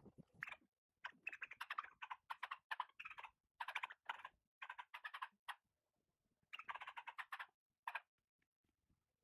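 Short, quick, scratchy bursts of sound from an Australian cattle dog close to the microphone, coming in runs of about three a second with a couple of pauses.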